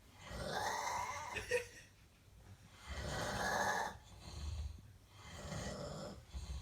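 Snoring: four rough snores in a row, each lasting up to about a second and a half, with short quieter pauses between them.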